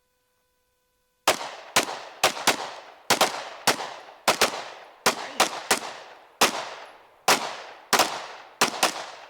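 A rapid string of about fifteen gunshots from a firearm, fired quickly at an uneven pace of roughly two a second, each shot leaving a short ringing tail. The shooting starts about a second in.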